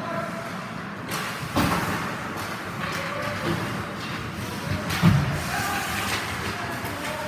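Ice hockey players battling for the puck against the rink boards: thuds and slams of bodies and sticks on the boards, the loudest about five seconds in, with voices calling out in the rink.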